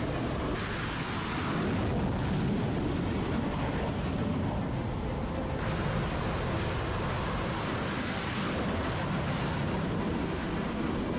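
Fighter jet engines running on an aircraft carrier's flight deck: a loud, steady noise with wind buffeting the microphone. The sound changes abruptly about half a second in and again about halfway through.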